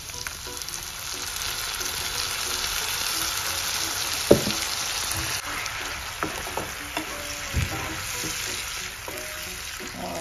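Tomato and chilli sauce sizzling in hot butter with fried onions and garlic as it is poured into the pan, the sizzle swelling over the first few seconds. A spatula stirs it, knocking against the pan a few times; the sharpest knock, about four seconds in, is the loudest sound.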